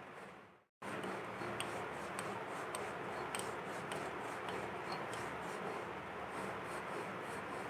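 Soaked rice being ground into flour on a shil-nora: the stone muller rubbing and scraping over the stone slab with small gritty clicks. It drops out briefly about a second in, then carries on steadily.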